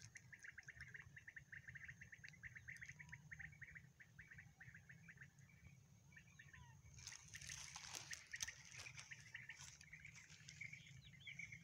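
Faint outdoor ambience: a rapid chirping trill for the first few seconds that comes back near the end, over a steady thin high whine, with a brief rustle about seven seconds in.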